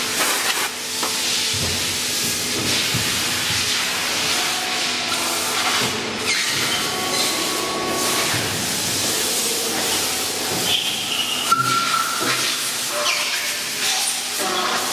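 Workshop noise around a vertical LSR injection molding machine: a steady hiss with short tones that come and go and a few scattered knocks.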